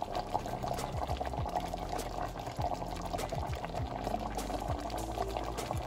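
Thickened soy-oyster sauce bubbling and popping steadily as it simmers around a braised pork hock in the pot.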